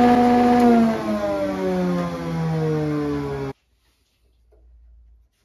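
Kity 636 planer/thicknesser running with a whine. It holds a steady pitch at first, then the pitch falls steadily as the machine slows. The sound cuts off abruptly about three and a half seconds in.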